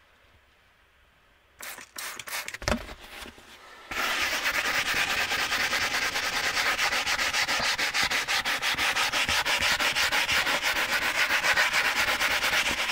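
Soft-bristled Chemical Guys leather brush scrubbed fast back and forth over a leather car seat, a steady scratchy rubbing that starts about four seconds in. Before it, near silence and a few short handling sounds.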